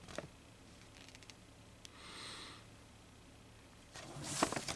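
Quiet room with a soft breath about two seconds in, then a paper instruction sheet crackling and rustling as it is handled and turned over near the end.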